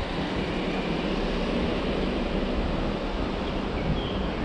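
Steady rushing noise of wind on the microphone, with a low rumble underneath.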